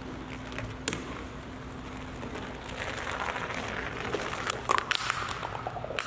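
Remote-control golf ball rolling over concrete: a faint steady rolling rasp with a light hum, and a single click about a second in.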